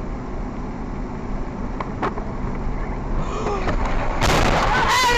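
Car driving on a wet, slushy road, heard from inside the cabin as steady engine and tyre noise. About four seconds in, a loud rushing noise lasts about a second.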